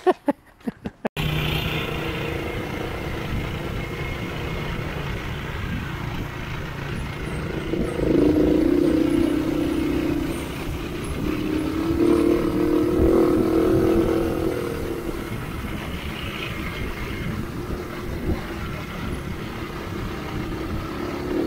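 Doodle Bug mini bike's Predator 212cc single-cylinder four-stroke engine running under way, with the throttle opened twice so that it grows louder for a couple of seconds each time.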